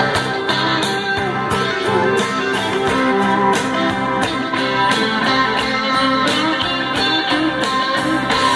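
Guitar music with a steady beat playing through a pair of Mordaunt-Short bookshelf speakers driven by a vintage stereo receiver.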